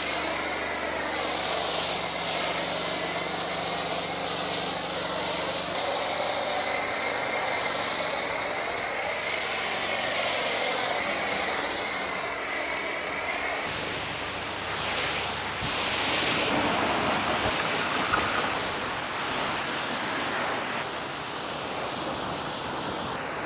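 Pressure washer spraying water over a car's bodywork in a rinse-aid rinse: a steady hiss of spray over the machine's motor hum, which fades partway through.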